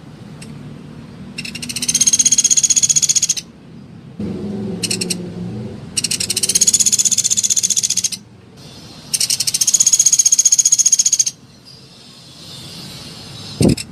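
Pelatuk beras, a small pied woodpecker, calling in rapid, high-pitched rattling trills. There are three trills of about two seconds each and one short burst between them. A single low thump comes near the end.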